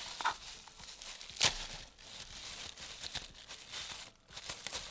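Handling of a desk microphone stand and its packaging: crinkling and rustling with scattered small clicks, and one sharp knock about one and a half seconds in.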